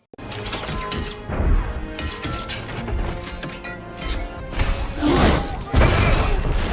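Loud, dramatic music mixed with crashes and smashing impacts, starting suddenly and cutting off abruptly.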